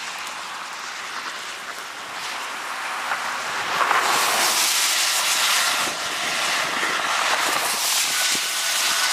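Thunderstorm wind and rain making a steady rushing hiss, which swells louder about four seconds in and stays up.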